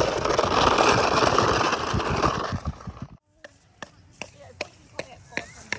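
A loud, steady rushing noise cuts off abruptly about three seconds in. It is followed by sharp, evenly spaced knocks, about two and a half a second.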